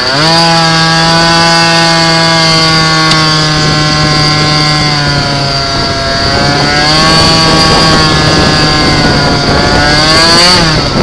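Malossi 77cc-kitted Piaggio Zip two-stroke scooter engine heard on board. Its pitch rises as it pulls away, then holds a steady high note, dipping slightly midway and falling away near the end as the throttle eases. A constant high-pitched whine runs above the engine note.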